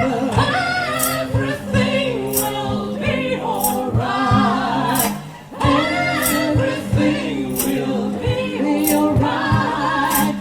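Vocal trio singing close harmony without clear words, over steady bass notes and a sharp percussion hit about every second and a quarter, with a brief break about five seconds in.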